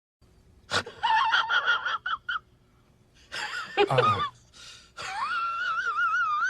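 A comedy sound-effect clip of a very high-pitched, squeaky voice: a string of short squeaks and gasps, a falling cry, then a long wavering squeal near the end.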